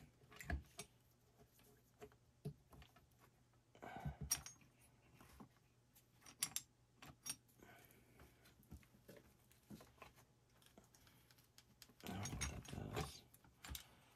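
Scattered light metallic clinks and taps of hand tools and parts while the cylinder heads are taken off an Evinrude outboard block, with a busier stretch of handling noise near the end.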